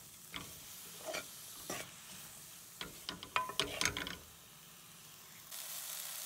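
Wooden spatula stirring and scraping chopped onion and tomato as they fry in oil in a pan, with separate scrapes and a quick cluster of them about three to four seconds in. From about five and a half seconds in, a steady sizzle of the frying mix.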